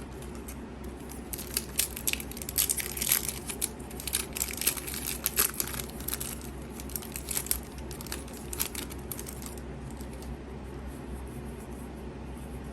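Foil Yu-Gi-Oh! booster pack wrapper crinkling and tearing as it is opened and handled: a run of quick, sharp crackles that thins out after the middle.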